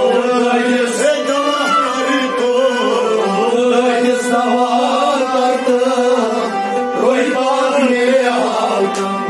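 Kashmiri devotional folk singing: a lead singer and chorus voices over a sustained harmonium, with a bowed sarangi and a rabab. The music plays without pause.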